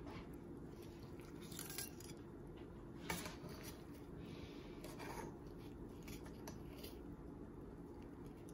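Faint clicks and scrapes of metal serving tongs and a fork working a slice of pot pie loose from its dish, the sharpest click about three seconds in, over a low steady hum.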